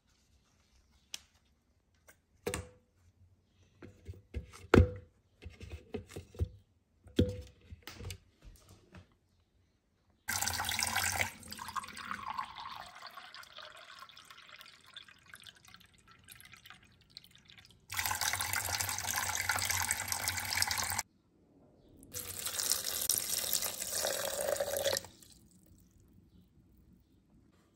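A scatter of light clicks and knocks, then kitchen tap water running into a glass in three long stretches, each starting and stopping abruptly.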